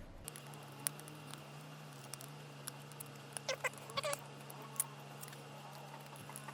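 Leftover adhesive tape being picked and scraped off the back of a phone case: scattered small clicks and scrapes, with a few brief squeaks around the middle, over a low steady hum.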